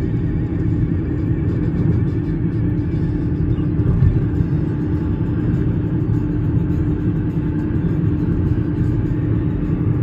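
A freight train passing close by: a loud, steady rumble of wheels on rail, with a low hum under it.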